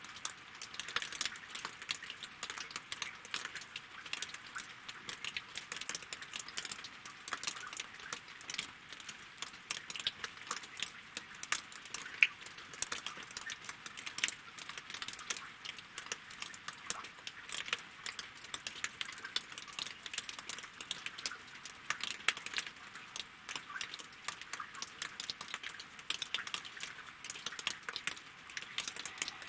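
Rain falling on a lake and on wooden logs: a steady, dense patter of separate sharp drop ticks.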